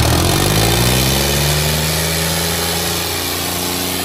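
Diesel tractor engine under heavy pulling load in a tractor tug-of-war. Its engine speed climbs over the first couple of seconds, then holds steady.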